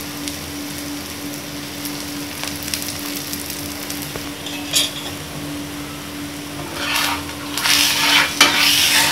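Ragi dosa frying in oil on a tawa with a steady sizzle. From about seven seconds in, a spatula scrapes against the pan as it is worked under the dosa's edge.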